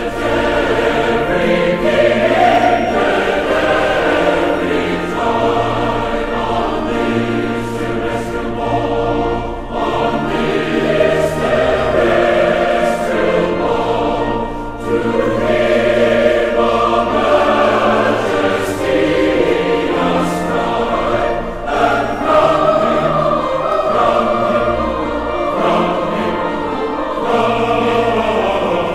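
Choir singing long, held notes over a low bass accompaniment.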